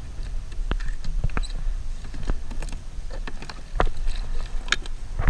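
Scattered sharp clicks and knocks, irregularly spaced, as horseshoe crabs' hard shells and the landing net are handled against the plastic kayak, over a steady low wind rumble on the microphone.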